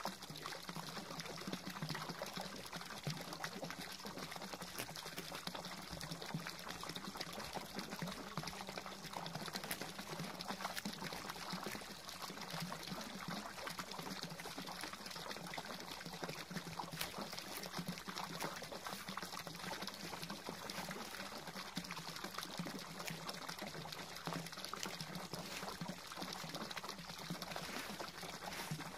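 Garden pond fountain: a jet of water pouring steadily into the pond with a continuous splashing.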